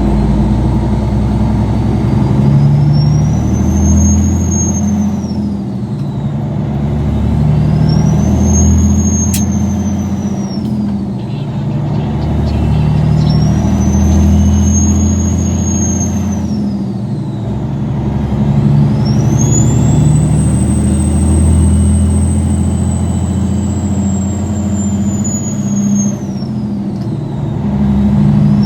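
Caterpillar 3406B inline-six diesel revved up and let back down four times, the last rev held longest, with a fifth starting near the end. With each rev the high turbocharger whistle rises, holds and falls away over the engine's rumble.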